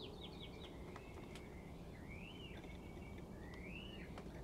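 Birds calling faintly in the background: a quick run of short falling chirps near the start, then two slurred whistles that rise and fall, about a second and a half apart.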